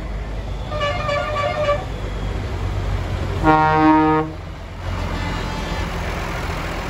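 Diesel tractor engines running as the tractors pass slowly, with a loud low horn blast lasting just under a second about halfway through. A shorter, higher-pitched toot sounds about a second in.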